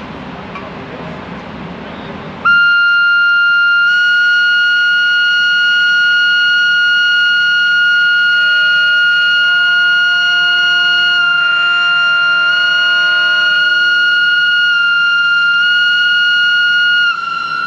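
Horn of an SBB Re 4/4 electric locomotive sounding one long, loud, steady high note, starting a couple of seconds in and cutting off just before the end. For several seconds midway, further lower horn notes sound alongside it. Before the horn, and under it, is the low rumble of the slowly passing locomotives.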